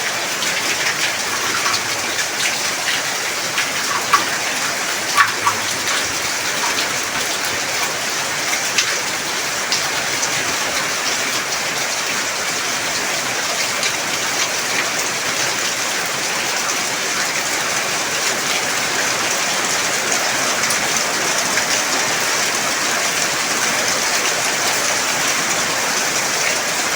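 Heavy rain falling steadily in a dense hiss, with a few sharper drop strikes standing out in the first several seconds.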